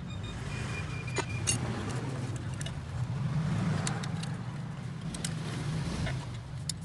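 A motor vehicle's engine running steadily, with scattered sharp metallic clicks and taps over it. A brief high tone sounds about a second in.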